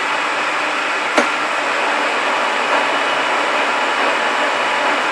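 Large 40-inch manual lathe running, its spindle turning and the carriage driven along the lead screw with the half nut engaged: a steady mechanical whir of the gearing and drives, with one sharp click about a second in.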